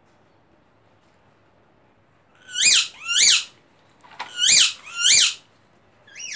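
Loud, high squeaks, each rising then falling in pitch, coming in pairs: two a little under three seconds in, two more about a second and a half later, and another at the end.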